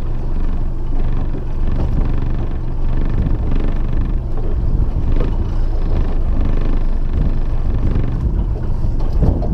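Motorboat engine running steadily at trolling speed, mixed with water wash and wind buffeting the microphone.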